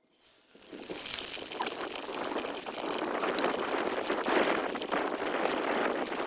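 Gourd leaves frying in hot oil: a dense sizzle with many small crackles that starts about half a second in, as they go into the oil, and then holds steady.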